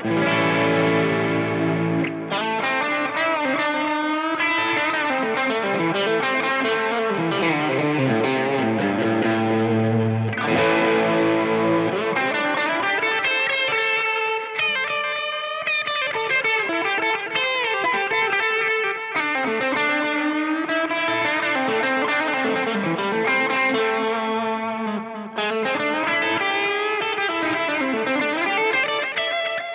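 Electric guitar played through a T-Rex Replicator D'luxe tape echo pedal, a run of overdriven notes and held chords with the tape delay repeating them. The sound briefly drops out about twenty-five seconds in.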